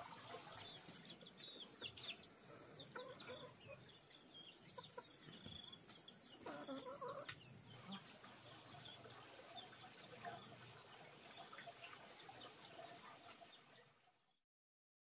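Faint chickens clucking amid many short high chirps, with a stronger call about six and a half seconds in; the sound fades out near the end.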